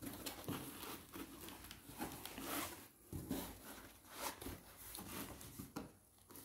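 Plastic wrapping on a boxed electric tandoor rustling and crinkling faintly as hands handle it, in short irregular bursts.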